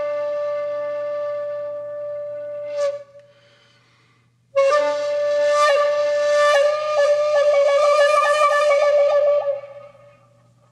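Solo flute music. A long held note breaks off about three seconds in, and after a pause of over a second a new phrase starts, turning into a fast fluttering trill before it fades near the end.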